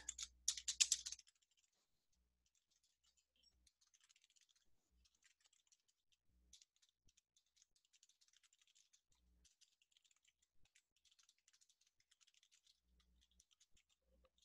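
Faint typing on a computer keyboard: scattered quick key clicks, a little louder in the first second.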